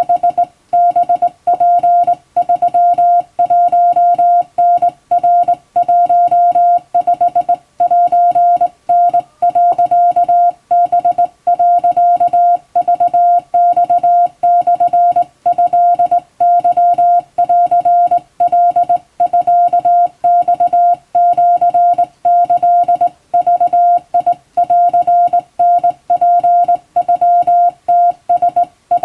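Hand-sent Japanese Wabun Morse code: a single steady beep keyed on and off in dots and dashes, with short gaps between characters and the uneven timing of a manual telegraph key.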